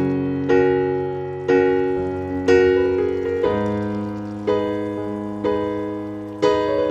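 Background piano music, with chords struck about once a second, each fading before the next.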